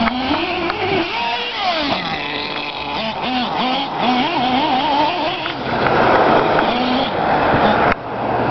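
Hot Bodies nitro RC car's small glow engine revving, its pitch rising and falling over and over as the car is driven. A louder rushing noise joins in between about six and eight seconds in.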